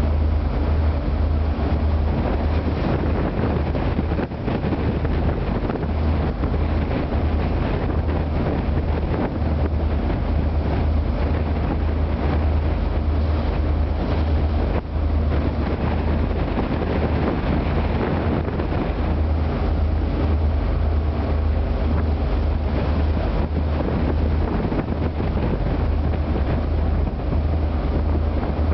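Wind buffeting the microphone over the steady low drone of an ocean-going tug's engines running under tow load, with the rough sea washing past the hull.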